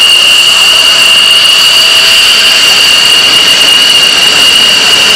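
Jet engine of a taxiing F-16 fighter, a steady loud high-pitched whistling whine with fainter higher overtones above it.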